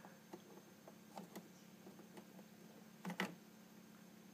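Faint clicks and taps of an 8 GB SO-DIMM RAM module being handled and pressed into the memory slot of a late-2012 27-inch iMac, with a louder double click about three seconds in.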